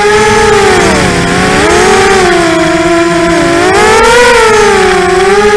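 ImmersionRC Vortex 250 Pro racing quadcopter's brushless motors and propellers whining loudly, heard from the onboard camera. The pitch drops about a second in and again past the middle, then climbs, following the throttle.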